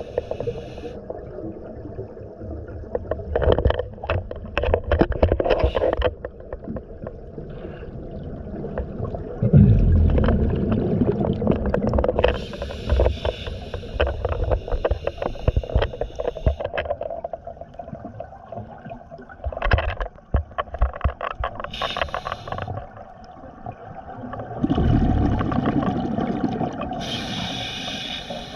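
A scuba diver breathing underwater through a regulator, recorded by the diver's own camera: hissing inhalations alternate with bubbling, rumbling exhalations over several breaths.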